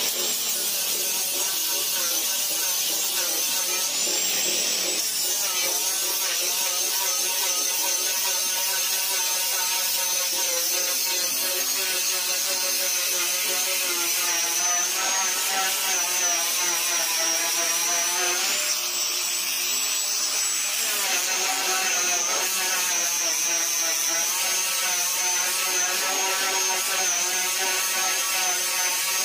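Electric angle grinder with a sanding disc stripping paint off a car hood down to bare metal: a steady high motor whine with the gritty rasp of abrasive on the panel. The whine rises briefly in pitch about four seconds in and again about two-thirds of the way through.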